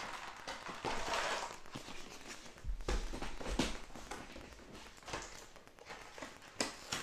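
Handling noise from small doll clothes and accessories being laid out on a table: soft rustling and scattered light knocks and clicks, with a few dull low thumps about three seconds in.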